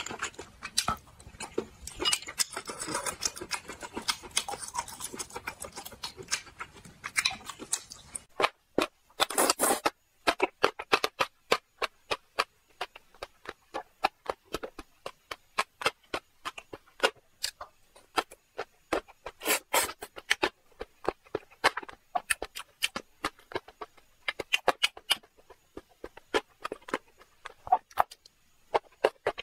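Close-miked eating sounds: sucking and chewing at saucy, spicy seafood, with a busier stretch of wet noises at first and a louder burst about nine seconds in, then a long run of sharp wet mouth clicks and lip smacks as the food is chewed.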